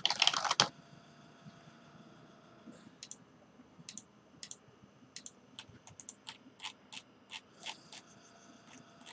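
Computer keyboard typing: a quick run of keystrokes in the first moments, then scattered single key clicks.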